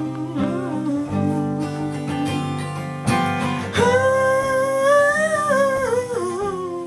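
Acoustic guitar picked and strummed. About four seconds in, a long wordless vocal line comes in over it and is held with small bends in pitch.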